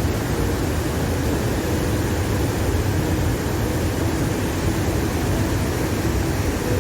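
A loud, steady rushing noise with no rhythm and no clear pitch, with a fluttering low rumble underneath.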